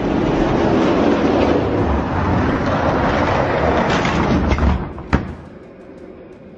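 Die-cast Hot Wheels monster trucks rolling fast down an orange plastic track, a loud rattling rumble of plastic wheels on the track joints. The rumble fades about five seconds in, when a single sharp clack marks the trucks reaching the finish.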